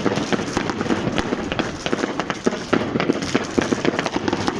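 Fireworks and firecrackers going off in a rapid, dense crackle of sharp bangs, many every second without a break.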